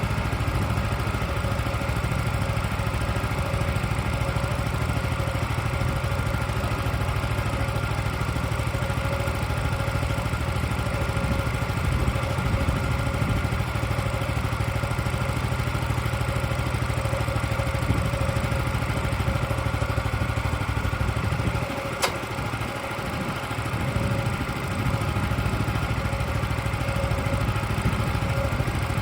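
Portable sawmill's engine running steadily, with a sharp click and a short dip in its low hum about three-quarters of the way through.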